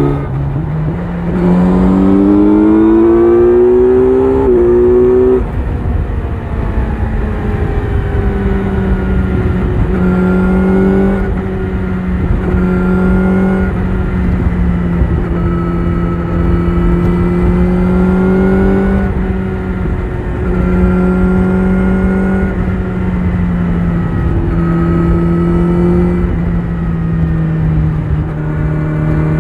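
Kawasaki Z900 inline-four with an Akrapovic exhaust, ridden hard: the engine note climbs steeply for about four seconds, drops sharply at an upshift about five seconds in, then holds at fairly steady revs with small throttle rises and dips. Wind rush runs underneath.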